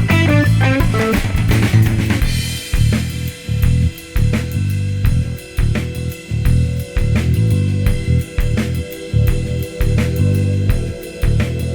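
Background music: a steady drum-kit beat with bass drum and snare under guitar, a melodic guitar phrase leading in at the start.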